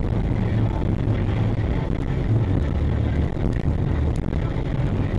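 Steady engine and road noise of a car driving, heard from inside the cabin through a dashcam's microphone, with a low drone underneath.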